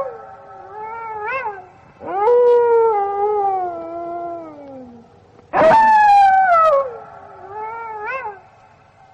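Gray wolf howling: long howls that start high and slide slowly down in pitch, with short wavering rises and falls between them.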